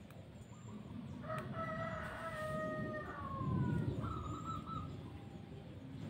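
A rooster crowing once, a drawn-out call that falls in pitch at its end, over a low rumble.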